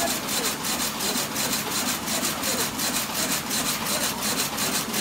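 Tongda TD-798 jute rapier loom weaving heavy jute sacking, running with an even mechanical beat of about three strokes a second, one for each pick at its 180 rpm running speed.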